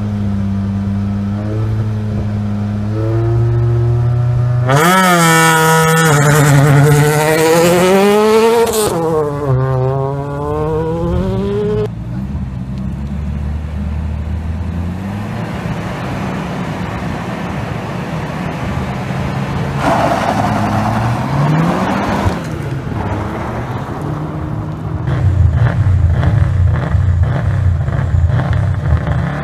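Rally car engine held at high revs on the start line, then launching hard on gravel about five seconds in, climbing in pitch through several gear changes and fading as the car drives off down the stage. Near the end, another rally car's engine runs low and steady at the start.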